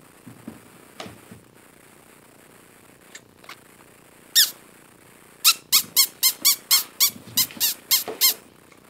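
Husky puppy whining in high, squeaky squeals, each falling in pitch: one about four seconds in, then a quick run of about a dozen, roughly four a second. A few soft knocks come in the first second and a half.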